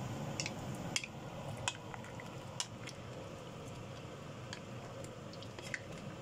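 Wooden spatula stirring chunks of carrot and yam in a stainless steel soup pot, with scattered sharp clicks and knocks against the pot over a steady hiss.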